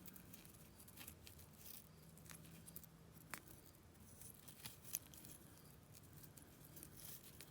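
Faint, sparse clicks and clinks of costume jewelry being handled as a tangled bracelet is worked loose.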